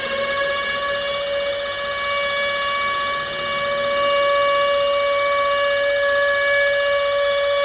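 Air-raid siren sounding an attack warning, held at the top of its wind-up as one steady wail.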